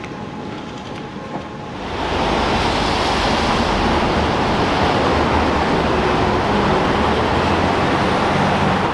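City street traffic: cars driving past in a steady, loud wash of tyre and engine noise that starts suddenly about two seconds in. Before it, a quieter hum with a faint steady tone from the train platform.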